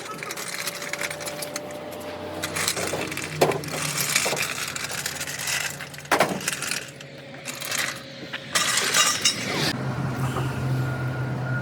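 Metal clinks and clanks of tools and parts being handled, with several sharp knocks, over the steady hum of an engine running.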